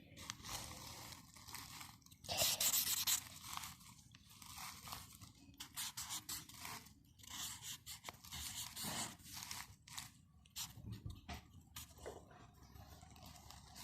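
Metal scouring sponge being squeezed and scraped, giving irregular crunchy, crackling scrapes. The loudest burst comes about two seconds in.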